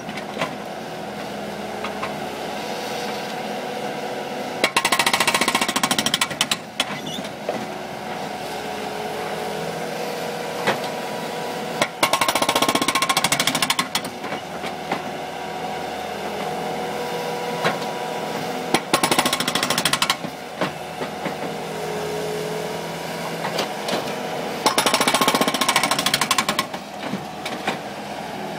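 Bobcat skid-steer's engine running steadily while its hydraulic breaker hammers at the parking-lot pavement in four bursts of rapid blows, each lasting one to two seconds.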